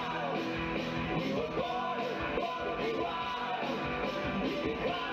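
A live band playing an up-tempo number: male voices singing into microphones over drums, guitar and keyboard.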